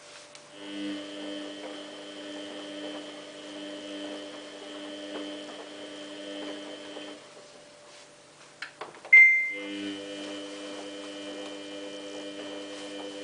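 Samsung WF8804RPA washing machine giving a steady electrical hum that stops about seven seconds in. A few clicks and a short, loud high beep from the control panel follow about nine seconds in, and then the hum starts again.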